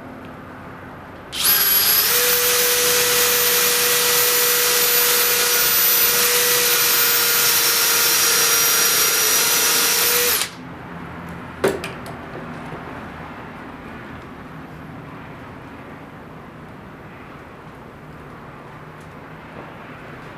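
An electric power tool's motor runs at a steady speed with a constant whine for about nine seconds, then stops; a single sharp knock follows about a second later.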